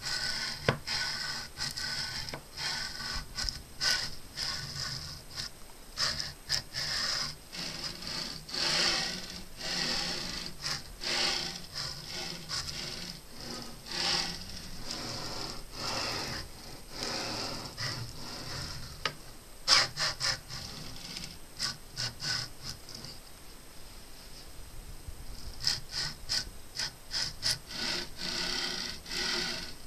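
Homemade aluminium-profile CNC machine making test moves: the stepper motors drive the carriage along its linear rails with a gritty, rasping hum. It runs in short stretches that start and stop, with clicks, and is quieter for a few seconds past the middle.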